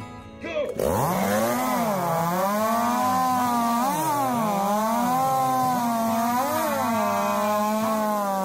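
Two-stroke chainsaw revving up to full throttle about a second in and cutting through a log, its pitch dipping and recovering again and again as the chain bogs under load in the cut.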